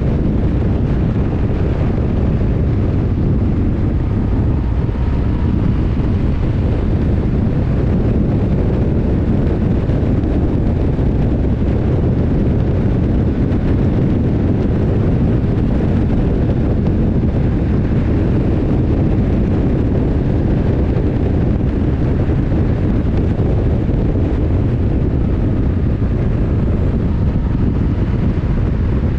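Steady wind rush on the camera microphone over a BMW R1150R's flat-twin engine running at a steady road speed.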